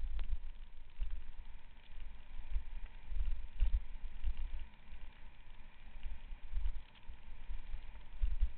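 Onboard sound of a mountain bike riding fast down a steep gravel forest trail: an uneven low rumble of wind and ground buffeting, with scattered rattles and clicks from the bike and loose stones.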